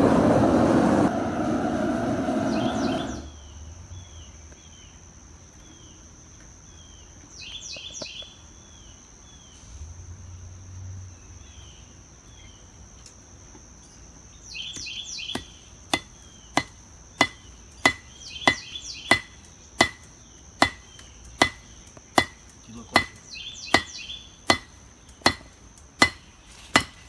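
Hammer blows on an anvil, forge-welding a hot stack of quarters: a steady run of ringing strikes, about one and a half a second, starting a little past halfway. Before that, the roar of the gas forge burner cuts off about three seconds in, and birds chirp in the quiet stretch.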